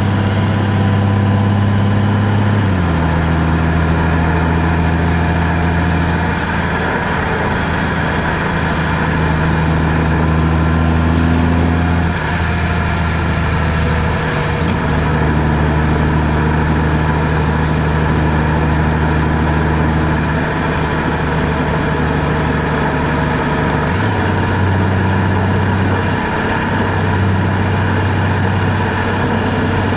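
Car engine and road noise while driving: a steady low engine hum that steps down in pitch about three seconds in, shifts again around the middle, and steps back up near 24 seconds.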